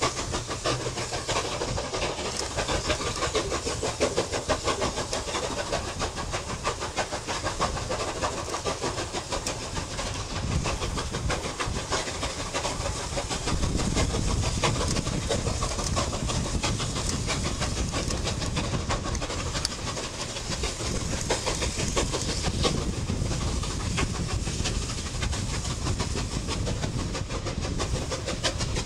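Two QJ 2-10-2 steam locomotives double-heading a heavy freight train, their rapid exhaust beats and hiss of steam sounding together as they work hard up a steep grade. A heavier low rumble comes in about halfway through.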